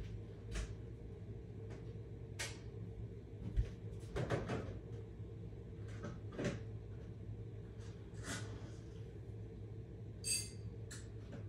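Faint room tone with a steady low hum, broken by scattered soft clicks and rustles of bedding and the phone being handled.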